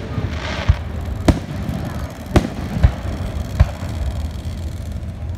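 Fireworks going off in the street, about six sharp separate bangs at uneven intervals over a steady low rumble.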